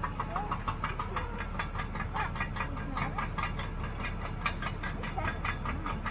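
Caterpillar D6T XL bulldozer at work: its diesel engine rumbles steadily while its steel tracks clank evenly, about six times a second.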